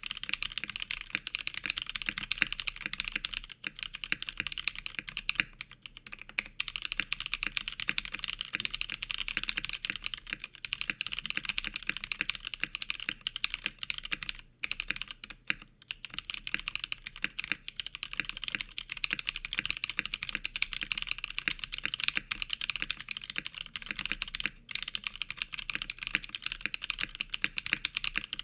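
Continuous fast typing on an Osum Hazel custom mechanical keyboard with a 3 mm acrylic plate, Novelkeys Cream linear switches lubed with Krytox 205g0 and PBT keycaps: a dense, steady stream of keystrokes, broken by a few brief pauses.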